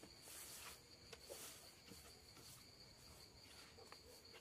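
Faint, steady high-pitched insect trill, cricket-like, with a few soft rustles and light handling noises.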